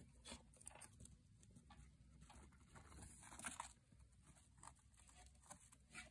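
Near silence with faint, scattered rustles and light ticks: crinkly paper bedding shifting and a plastic hamster ball being moved about.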